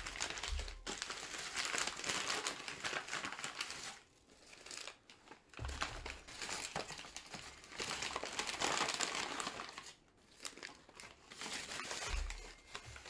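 Brown kraft paper crinkling and rustling as it is handled and wrapped around a potted plant. It comes in three stretches, with short lulls about four and ten seconds in, and a couple of low bumps from handling.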